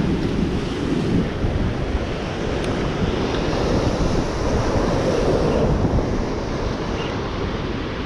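Rough surf churning and breaking below the pier, with wind noise on the microphone; a steady, loud wash of sound.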